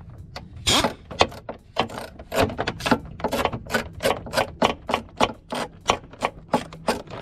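Quick, irregular clicks and knocks, about three or four a second, from hand-working the door handle mechanism inside a Porsche Panamera's front door.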